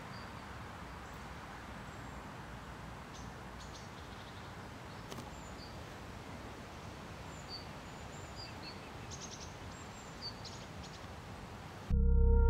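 Quiet outdoor ambience: a steady background hiss with faint, brief bird chirps scattered through it. Music starts near the end.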